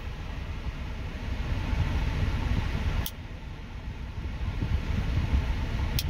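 A blade of a Bulldog Brand canoe pocketknife snaps shut with one sharp pop about three seconds in, the crisp snap of a strong backspring. Under it is a steady low rumble in the car cabin.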